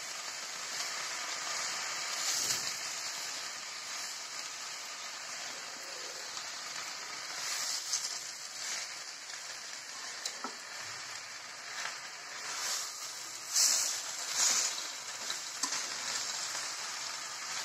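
Vegetables sizzling in hot oil in a kadai as Malabar spinach leaves and brinjal are stirred in with a spatula. A steady frying hiss, with a few short louder bursts as the spatula turns the leaves.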